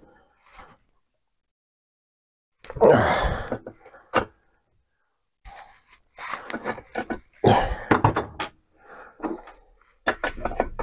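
Sharp metal clicks and knocks from an adjustable pipe wrench gripping and turning a tight chainsaw bar stud, mixed with short wordless vocal sounds of effort.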